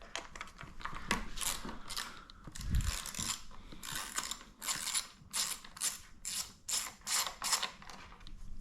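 Socket ratchet wrench clicking in quick repeated strokes, about two to three a second, turning an 8 mm bolt on a motorcycle.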